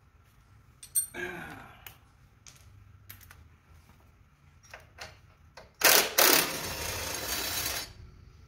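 Clicks and light clinks of tools being handled, then a cordless drill-driver fitted with a Torx bit runs for about two seconds near the end, backing out a screw from the mower's body panel.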